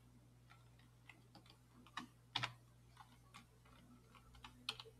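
A few faint, scattered computer keyboard keystrokes and clicks while code is being typed and pasted, the clearest about two and a half seconds in and near the end.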